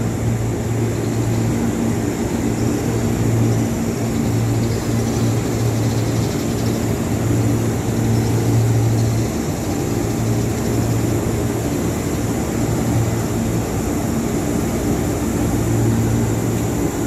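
Diesel locomotive engine idling: a steady drone with a low hum that comes and goes every second or two.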